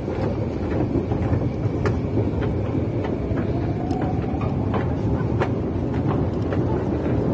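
Steady low rumbling noise in an underground MRT station, with scattered sharp clicks and a faint rising whine around three to four seconds in.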